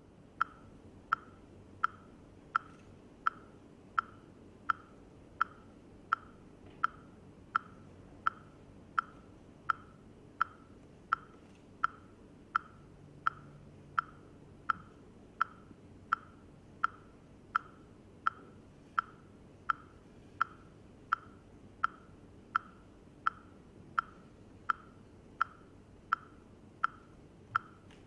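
A steady beat of short, pitched clicks, evenly spaced at about three every two seconds, each ringing briefly like a metronome or woodblock tick. A low steady hum lies underneath.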